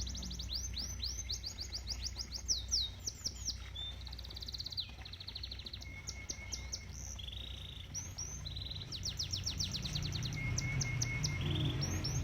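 Domestic canary singing a long, varied song of fast rolling trills, changing from one rapid repeated note to another every second or two, over a steady low rumble.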